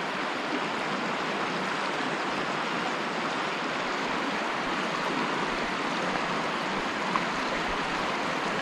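River water running over rocks: a steady, even rush.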